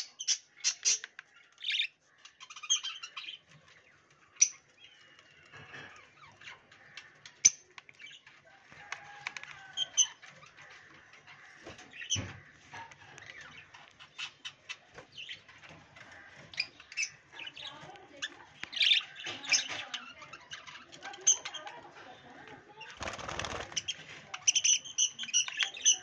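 Pet budgerigars chirping in short, scattered calls, with a brief flurry of wing flapping near the end.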